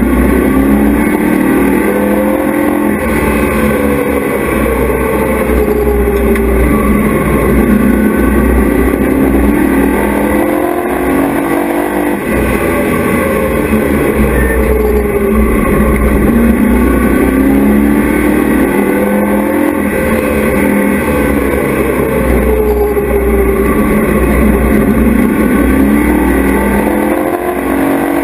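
Race truck's engine heard from inside the cab at racing speed, its pitch rising under throttle and dropping off again and again as it laps the track.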